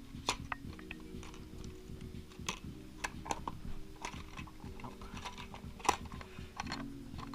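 Loose metal clutch parts clicking and a plastic zip-lock bag crinkling as the parts are handled and pushed into it: irregular light clicks and crackles, a sharper click near the end, over a steady low hum.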